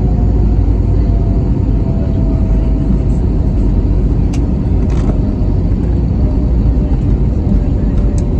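Airbus A321 cabin noise heard from a window seat over the engine while the airliner rolls on the ground after landing: a steady, loud, deep rumble of engines and wheels, with a faint engine whine slowly falling in pitch. A couple of faint clicks come about four and five seconds in.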